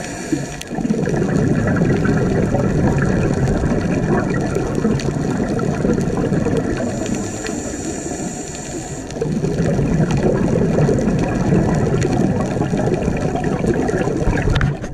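A scuba diver's regulator heard underwater on the camera: two long stretches of bubbling exhaled air, with a quieter pause and a thin hiss of inhaled air between them, about halfway through.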